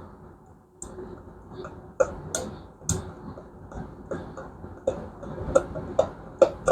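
Irregular sharp clicks and light taps, several a second at times, from small parts and hand tools being handled during workshop work.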